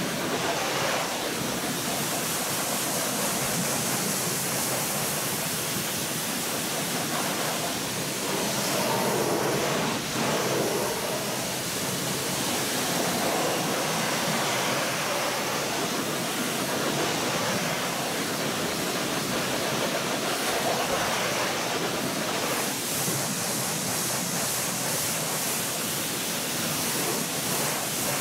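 Pressure-washer water jet spraying against a car's alloy wheel and tyre, a steady hiss and spatter that swells and eases a little as the jet is moved around the wheel.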